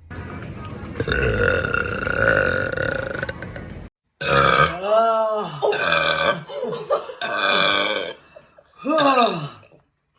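A woman burping: one long, drawn-out burp lasting nearly four seconds, then, after a sudden cut, several shorter pitched burps whose pitch rises and falls.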